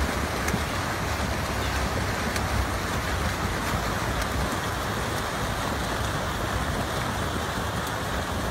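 Dense splashing of a large pack of open-water swimmers churning the water with their arm strokes and kicks, a steady hiss of spray.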